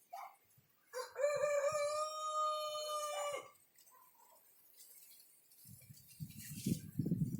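A rooster crowing once: a long held call of about two and a half seconds, starting about a second in. Near the end, gusts of wind start buffeting the microphone with a low rumble.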